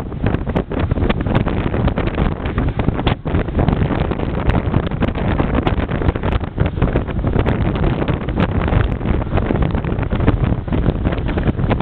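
Wind buffeting the microphone on a moving motorbike, over the steady running of small motorbike engines in dense scooter traffic.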